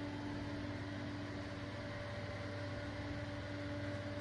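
Steady low mechanical hum with a faint hiss underneath: background room tone, no distinct events.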